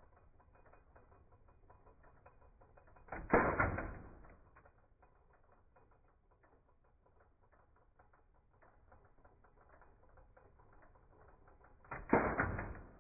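Typewriter clacking in rapid, irregular faint strokes, muffled and without highs, with two louder clattering bursts, one about three seconds in and one near the end.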